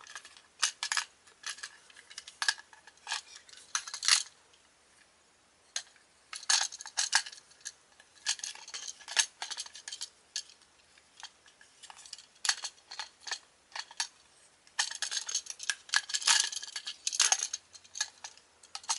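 Hard plastic toy parts of a Red Lion zord clicking, tapping and rattling together as they are handled and fitted, in irregular clusters of sharp clicks with brief pauses about five and fourteen seconds in.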